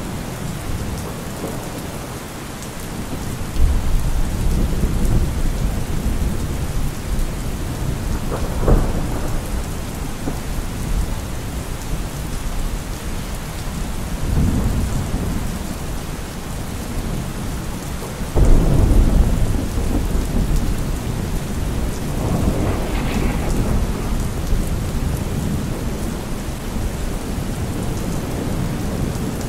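Thunderstorm: steady rain with several rolls of low thunder rumbling in and fading, the strongest starting a little past halfway through.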